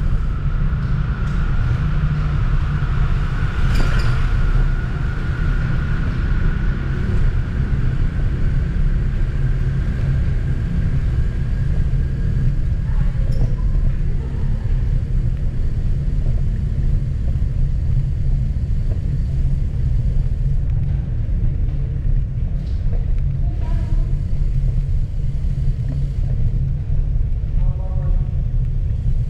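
Steady low rumble of wind on the microphone and tyre noise from a moving bicycle in a tunnel. A faint thin whine runs through the first half, and short snatches of voices echo a few times.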